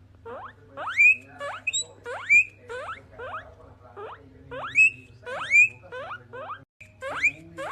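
Guinea pig wheeking: a run of short whistling squeals, each sweeping upward in pitch, several loud ones mixed with softer ones.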